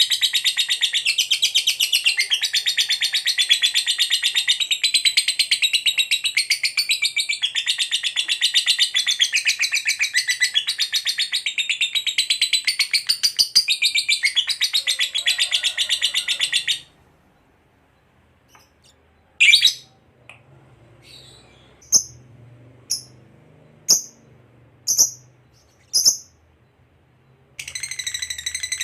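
Lovebird's long chattering 'ngekek' song: a continuous rapid, high rattling trill for about the first two-thirds, then it stops. After a pause come about six single sharp chirps roughly a second apart, and the rapid chatter starts again near the end.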